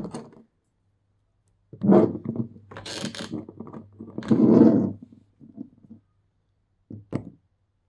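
Handling of a nail polish bottle and its clear plastic clamshell tray as the bottle is taken out and opened. A sharp click comes first, then several bursts of plastic rubbing and scraping over a few seconds, and two small clicks near the end.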